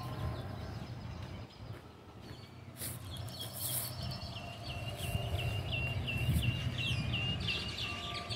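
A bird singing a long run of short, evenly repeated chirps, about three a second, starting about three seconds in, over a steady low outdoor hum.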